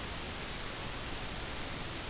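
Steady, even hiss with no distinct sounds in it: the background noise of an unattended room recording.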